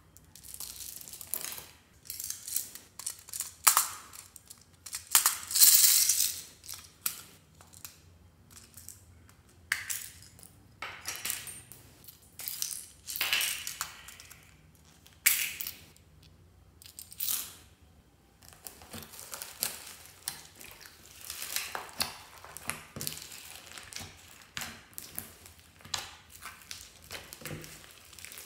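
Slime loaded with plastic beads and foam balls being squeezed and mixed by hand in a glass dish: irregular squishing and crackling in uneven bursts, with sharp clicks of beads.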